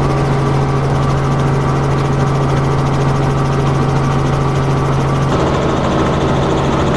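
Steady drone of a piston aircraft engine and propeller, holding an even pitch, with a slight change in its note about five seconds in.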